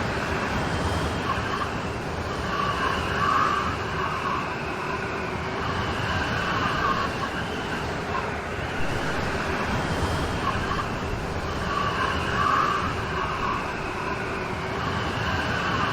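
Steady rain storm hiss with no break, with a brighter patch in the middle of the sound that comes back about every nine seconds.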